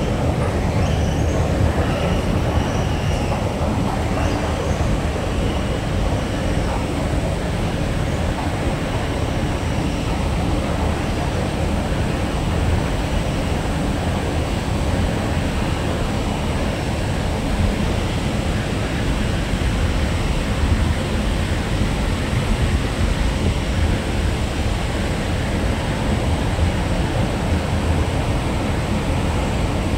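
Long subway escalator running downward with a rider on it: a steady low mechanical rumble from its steps and drive. A faint high whine over the first few seconds fades away.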